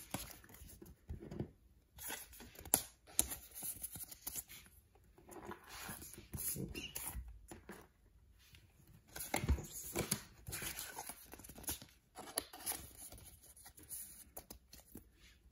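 Thin plastic card sleeves rustling and crinkling as trading cards are slid into them and handled, with irregular small clicks and a few light knocks.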